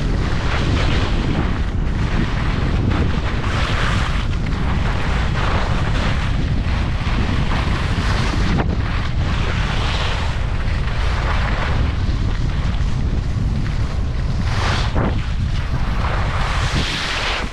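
Heavy wind buffeting the microphone: a dense, steady low rumble with a rushing hiss that swells and fades every few seconds, easing off near the end.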